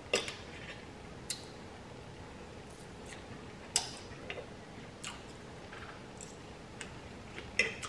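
Eating sounds: a handful of light, sharp clicks of a fork against a food tray while picking at sauteed shrimp and chicken, a second or more apart, with soft chewing between them.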